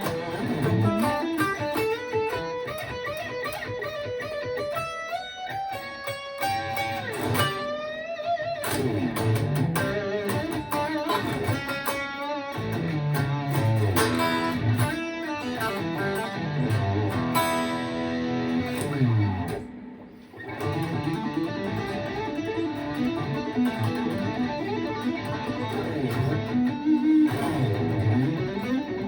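Gibson ES-335 electric guitar played with high-gain distortion in fast shred runs, the notes climbing and falling in quick streams, with a brief drop in level about two-thirds of the way through.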